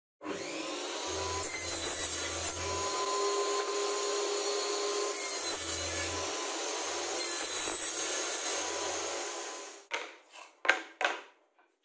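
Homemade table saw running and crosscutting plywood blanks, a steady sawing noise that shifts abruptly a few times. About ten seconds in the saw noise stops, and a few sharp clacks follow as cut plywood squares are set down on the saw table.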